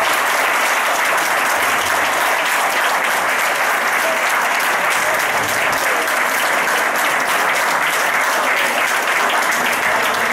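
A large audience applauding, a steady unbroken round of clapping.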